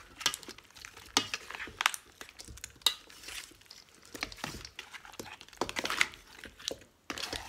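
Seafood being tossed in thick sauce with a black spatula in a stainless steel bowl: irregular knocks and scrapes of the spatula and shells against the metal, a few sharp clacks among them.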